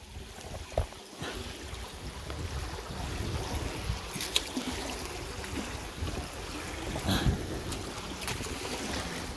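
Rain and wind noise with water trickling, and a few short knocks.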